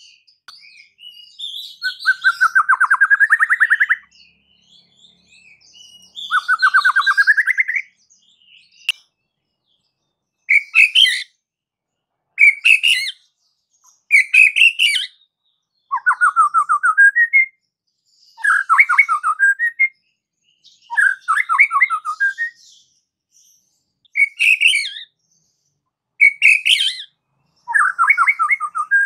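White-rumped shama (murai batu) singing: separate loud phrases about every two seconds with short pauses between, alternating fast rattling trills that rise in pitch with shorter, higher whistled phrases.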